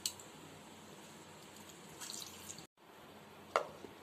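A little water trickling faintly onto broken biscuits in a steel bowl. After a break, a single sharp click sounds near the end.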